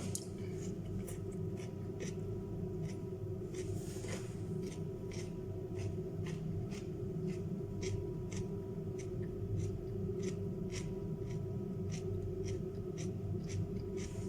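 Crunchy chewing of raw carrot and cucumber close to the microphone, in a steady rhythm of about two to three crunches a second, over a steady appliance hum.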